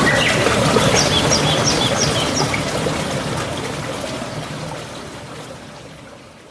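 Steady flowing water of a stream or small waterfall, with a bird calling a quick series of about five short chirps early on; the whole sound fades out gradually.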